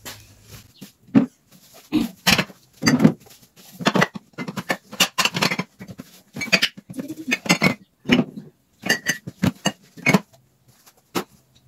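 Dishes and cutlery clattering and clinking as they are packed away, a run of irregular knocks and clinks.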